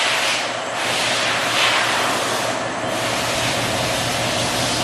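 Power sander running steadily on a fiberglass bumper, its motor holding a constant tone while the hiss of the pad on the fiberglass swells and fades a few times.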